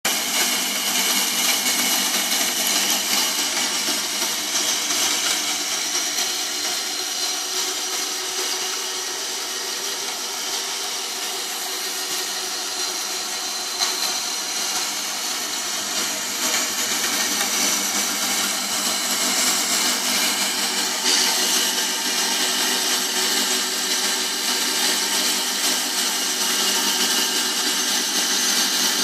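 Proxxon MBS 240E benchtop band saw running and cutting through a metal rod, a steady, high-pitched blade noise.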